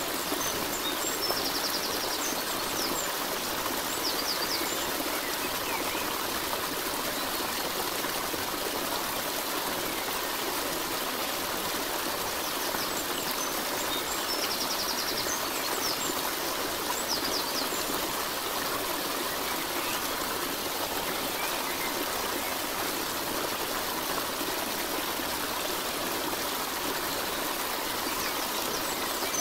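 Steady running water of a stream, with short high chirping twice, about fifteen seconds apart, as in a looped nature recording.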